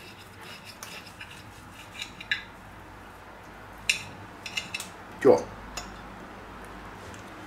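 Knife and fork cutting a steak on a plate: scattered clicks and scrapes of the cutlery against the plate, with a few sharp clinks about two and four seconds in.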